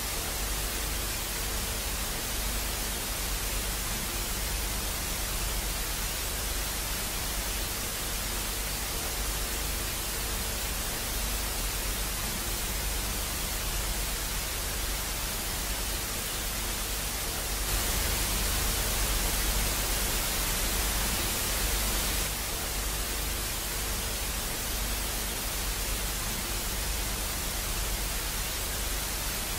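Steady hissing static, like an off-air television after sign-off, with a faint low hum beneath it. About eighteen seconds in, the hiss grows brighter and louder for about four seconds, then settles back.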